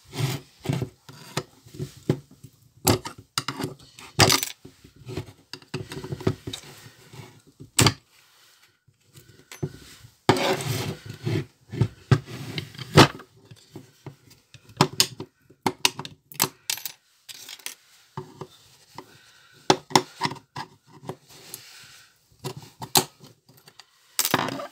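Metal retaining clips being pried off a BMW N53 throttle body's plastic cover and set down on the workbench, with the housing handled between them. The result is a run of irregular clicks, clinks and knocks, densest about ten seconds in.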